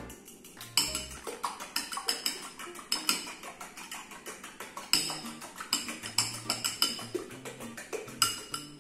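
A fork clinks rapidly against a small ceramic bowl as eggs are beaten, several taps a second, over background music.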